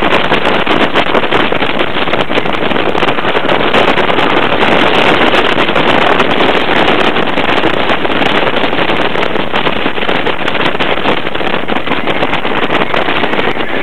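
Dodonpa roller coaster train running at speed: a loud, steady rush of wind over the microphone with the train's rattle on the track.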